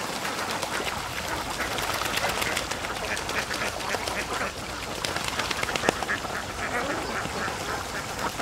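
A large flock of domestic ducks quacking, with many calls overlapping without pause.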